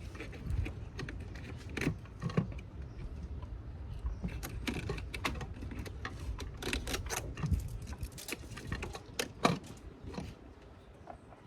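Irregular clicks, taps and rattles of hands handling wiring, zip ties and tools, over a steady low rumble.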